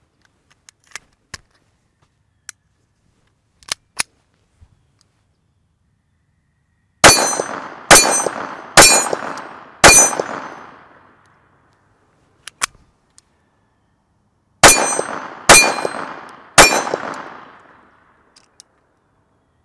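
Beretta Model 21A Bobcat .22 LR pistol: a few light clicks as the magazine is seated and the gun handled, then seven shots in two strings, four about a second apart, then after a pause three more. Each shot has a ringing tail.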